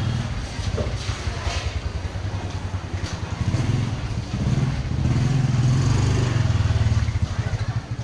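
A small motorbike engine running close by with a low, quickly pulsing note, growing louder in the second half.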